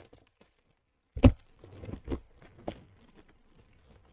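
Cardboard shipping box and its packing material being handled: a sharp loud thump about a second in, then rustling and crinkling of wrapping with a few lighter knocks.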